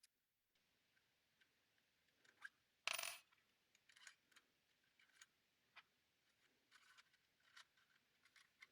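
Faint handling noises of small objects: scattered light clicks, taps and scrapes, with one louder, brief scrape or rustle about three seconds in.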